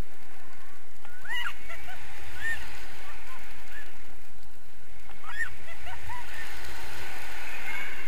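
Wind rushing steadily over a camera microphone in paraglider flight, with short high vocal squeals in two bursts, about a second in and again around five seconds in.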